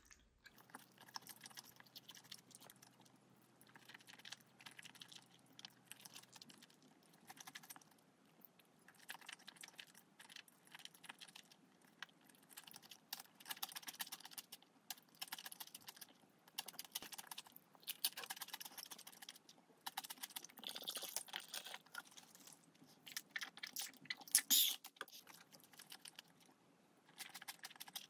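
Close-miked eating sounds: chewing with wet, clicky mouth noises in short bursts and pauses, as jjajangmyeon (black-bean noodles) and pickled yellow radish are eaten. The loudest burst comes a little before the end.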